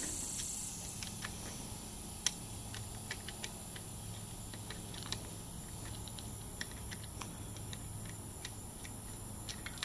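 Faint, scattered small clicks and ticks of a bottle cage's mounting pieces being worked down the guide of a bolt-on bottle-cage rail, with the sharpest click about two seconds in. A steady low hum runs underneath.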